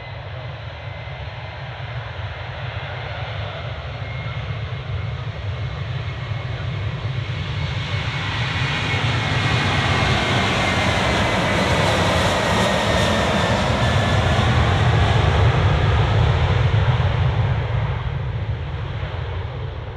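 Airbus A330-200 airliner's twin turbofan engines at takeoff power on the takeoff roll, the noise building as the aircraft passes close by, with a whine that slides down in pitch as it goes past. The sound eases off slightly near the end as the aircraft lifts off.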